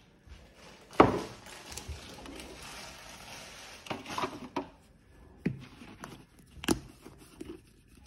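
A glass of cappuccino set down on a kitchen countertop with a sharp knock about a second in, followed by several softer knocks and clatters of things being handled on the counter, with one sharper knock near the end.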